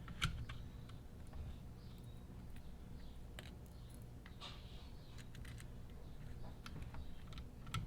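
Scattered light clicks and taps of small screws, plastic parts and a hand tool being handled while a shock absorber is fitted to an RC truck kit, over a faint steady low hum.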